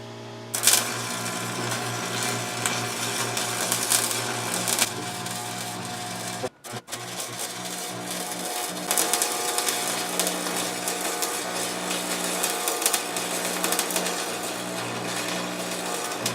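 Electric arc welding on steel: the welder hums steadily, and the arc crackles and sizzles as a stake is welded onto a canopy pole. The arc stops briefly about six and a half seconds in, then strikes again and runs on.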